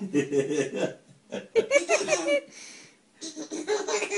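A baby laughing in three bursts of giggles, with a short breathy pause about two-thirds of the way through. The baby is ticklish from a cat licking its toes.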